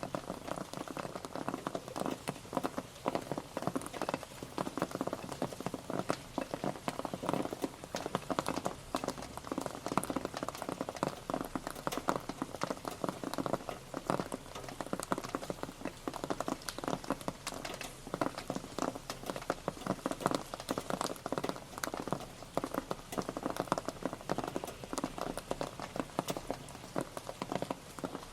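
Steady rain pattering on a surface, dense irregular drop impacts over a continuous patter.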